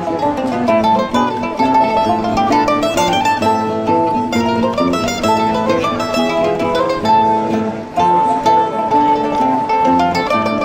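Instrumental music played on plucked strings, a lively run of quick notes.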